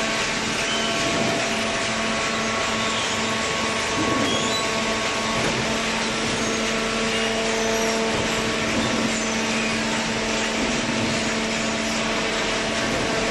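Horizontal hydraulic cardboard baler running: a steady machine noise with a constant hum and several steady whining tones over a hiss.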